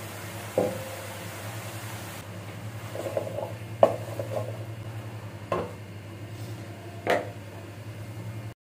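Wooden spatula stirring chunks of bottle gourd in an aluminium pot, knocking against the metal in about half a dozen short, separate knocks over a steady low hum.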